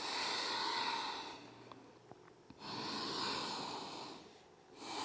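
A woman breathing slowly and deeply: three long breaths, each about one and a half to two seconds, one every two and a half seconds or so, the last starting near the end.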